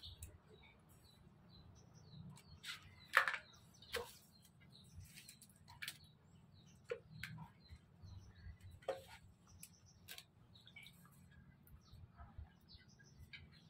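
Hands sorting live crabs in a plastic basin of water: small splashes and the scattered clicking of crab shells and legs against plastic, loudest about three seconds in.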